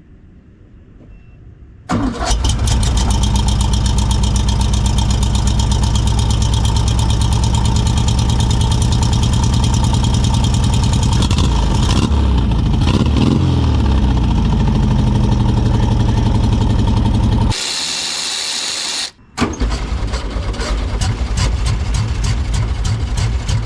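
Twin-carburetor car engine starting abruptly about two seconds in and running with a fast, steady firing pulse, its revs rising and falling briefly around the middle. Near the end it gives way for a second or two to a hiss and a short dropout, then the running resumes.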